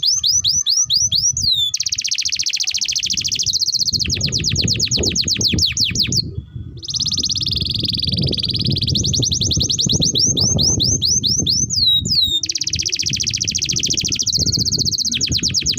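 Domestic canary singing long, rapid rolling trills, with runs of quick sweeping notes between them; the song breaks off briefly about six seconds in and then carries on.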